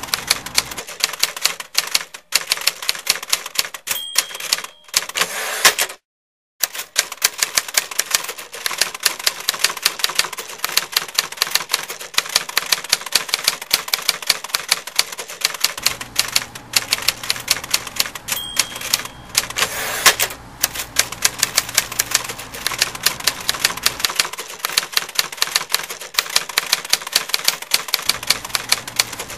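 Typewriter typing: a rapid, steady clatter of keystrokes, several a second, with short pauses and one brief stop about six seconds in. A short bell ding sounds twice, near four seconds and again past eighteen seconds.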